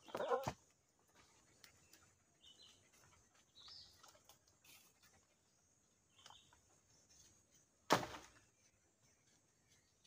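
Digging tool working into soil at an animal burrow: a short burst at the very start, then faint scrapes and one sharp thud about eight seconds in. A few faint bird chirps.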